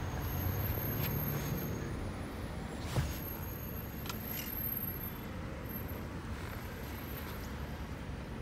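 Steady low rumble of a car and surrounding traffic heard from inside the car's cabin, with a single sharp click about three seconds in.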